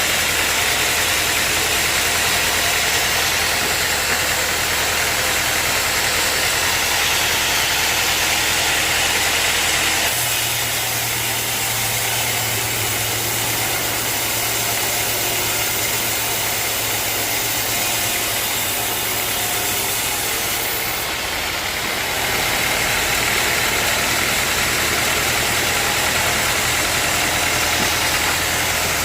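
Sawmill machinery running steadily, a continuous engine-and-saw drone whose low hum shifts about ten seconds in and again around twenty-two seconds.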